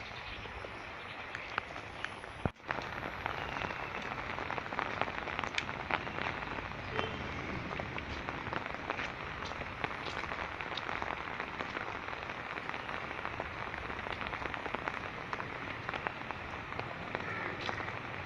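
Steady rain falling on standing floodwater and nearby surfaces: an even hiss scattered with many small drop clicks. There is a brief dropout about two and a half seconds in.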